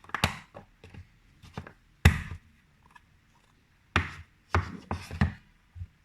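Cloud slime being squeezed and slapped by hand: a series of short, sharp slaps and pops, about six in all, the loudest about two seconds in.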